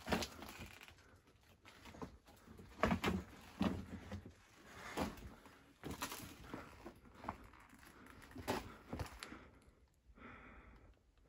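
Footsteps crunching and scuffing over loose rock and gravel on a mine tunnel floor, irregular steps with the odd stone knocked loose, in a small rock passage. Near the end, a breath.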